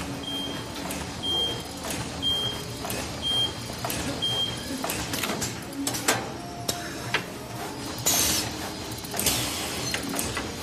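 Plastic T-shirt bag making machine running: a steady mechanical clatter with repeated sharp knocks as it cycles. A short high beep sounds about once a second five times in the first half, and there are hissing bursts near the end.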